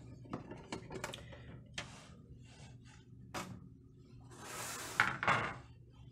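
A Formlabs Form 2 resin tank and its black plastic cover being handled in a cardboard box: scattered light clicks and knocks of plastic, then a longer scraping rustle a little over four seconds in, with two sharper knocks near its end.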